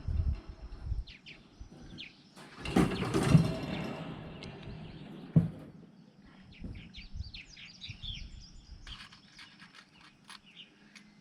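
Wire mesh cage panels clattering and knocking as they are handled, with a loud clatter about three seconds in and a sharp knock a couple of seconds later. Birds chirp through the second half.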